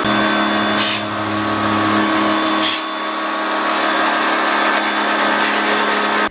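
Electric pressure washer running steadily, its motor humming under the hiss of the water jet sprayed into a split aircon's indoor unit, with two short louder surges of spray.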